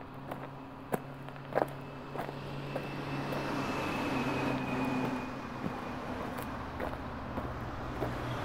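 A passing vehicle, its noise swelling over a couple of seconds and easing off again, over a steady low hum. Footsteps on wet pavement tap about twice a second in the first two seconds.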